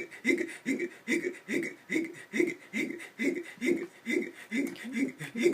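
A person hiccuping over and over in a fast, even rhythm, about two to three short voiced hiccups a second. These are persistent chronic hiccups that have gone on for months.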